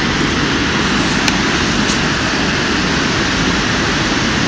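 Steady rushing of river water, with a couple of faint ticks about a second and two seconds in.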